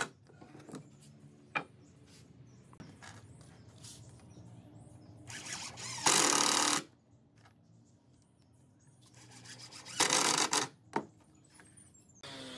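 Cordless drill driving screws into wooden step boards: two short runs of the drill, each under a second, about six and ten seconds in, with the screw grinding into the wood. There are a few light clicks in between.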